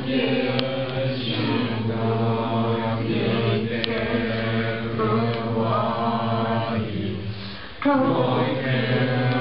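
A group of voices chanting a Buddhist prayer together in unison, on long held notes. The chant breaks off briefly near the end and starts again.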